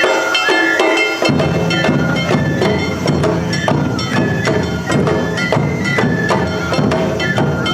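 Awa odori narimono band playing the two-beat dance rhythm: a hand-held kane bell and shime-daiko drums with a shinobue flute melody. Big ōdaiko drums come in about a second in.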